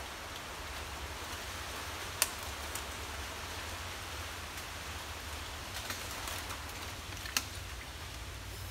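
Steady outdoor hiss with a low hum, broken by a few sharp snaps, the loudest about two seconds in and about a second before the end: dry nipa palm debris cracking underfoot as a person shifts his footing.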